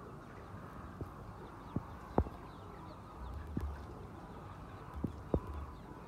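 A flock of chickens clucking and chattering steadily, with about six sharp knocks scattered through, the loudest about two seconds in.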